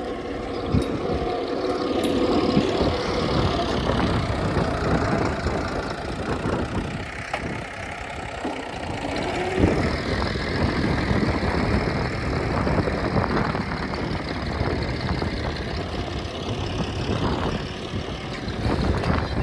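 Tractor engine running steadily, its loudness swelling and easing every few seconds.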